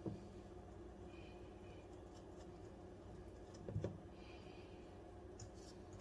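Faint stirring: a silicone spatula scraping and swishing through thick sauce in a stainless steel bowl, with a brief knock of the spatula against the bowl a little under four seconds in, over a steady low hum.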